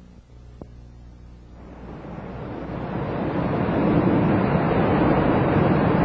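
Sea surf washing around rocks, fading in from near quiet over the first few seconds and then steady. A faint click about half a second in.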